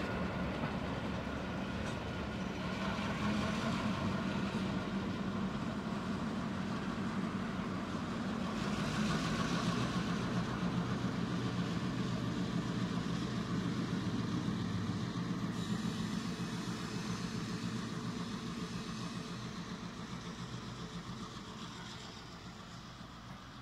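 Two streamlined GM class diesel-electric locomotives, powered by EMD 567 two-stroke V16 diesels, running steadily as they pull away. Over the second half the sound fades as they recede.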